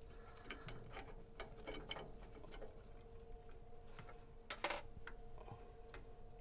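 Small metal screws being worked out and handled by gloved hands: faint scattered metallic clicks and ticks, with one sharper clink about four and a half seconds in, over a faint steady hum.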